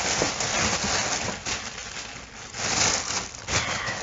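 Packaging being handled and unwrapped, rustling and crinkling, with short pauses.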